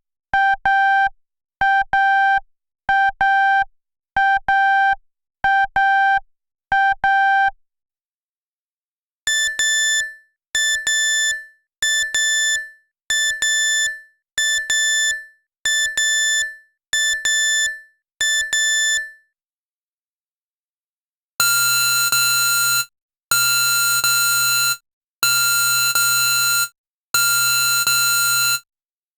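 Digital alarm clocks sounding, three different alarms in turn. First an electronic beep repeating about once a second, then a higher-pitched beep repeating about once a second for about ten beeps. Last come four longer, harsh buzzes about a second and a half apart.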